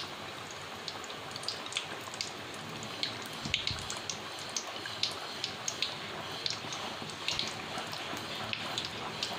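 Masala-coated onion rings deep-frying in hot oil in a kadai: a steady sizzle with frequent sharp crackling pops.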